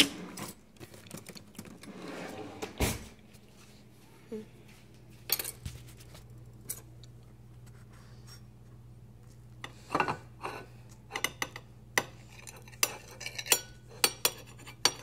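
A knife and a ceramic plate clinking and clattering, with a few scraping, rustling stretches early on. Scattered sharp clicks come in the middle, and a quick run of clinks comes in the last few seconds, all over a steady low hum.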